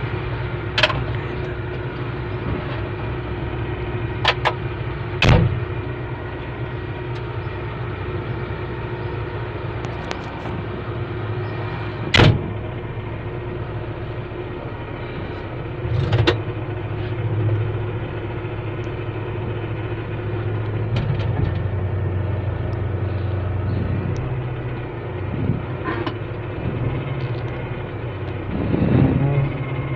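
Heavy diesel machinery running steadily, growing louder for several seconds in the second half, with sharp knocks of hard material striking at irregular moments, five of them in the first half.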